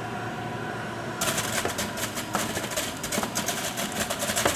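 Breville multi-speed centrifugal juicer running on its lowest speed, a steady motor hum, then about a second in fruit (kiwi) is pushed onto the spinning cutter disc and it changes to a dense crackling grind as the fruit is shredded.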